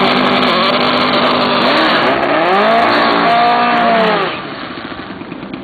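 Volkswagen drag car's engine revving hard at the start line, its pitch swinging up and down several times, then dropping back to a lower, quieter running about four seconds in.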